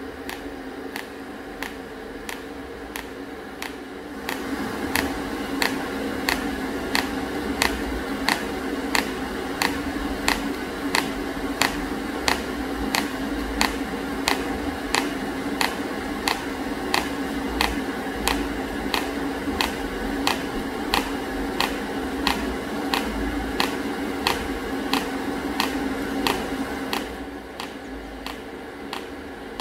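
TIG welding a steel exhaust pipe: a steady electrical hum from the welding arc, with a sharp click about twice a second. The hum grows louder about four seconds in and drops back near the end.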